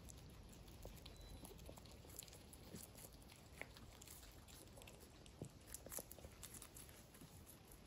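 Faint crunching and nibbling of several guinea pigs chewing fresh chopped greens, heard as scattered small crisp clicks with a few louder crunches.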